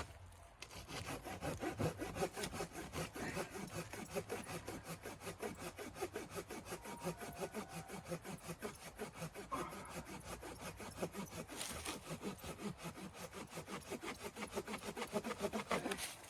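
Hand saw cutting through wood in quick, steady back-and-forth strokes, about three to four a second.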